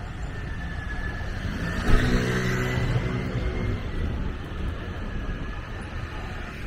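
A motor vehicle engine passing close by on a city street. It starts suddenly about two seconds in, is loudest there and fades over the next two seconds, over a steady hum of street noise.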